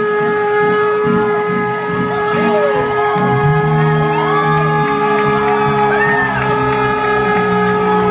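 Trombone holding one long, unbroken note at a steady pitch, with the band playing shifting lower notes underneath. The crowd whoops and yells throughout.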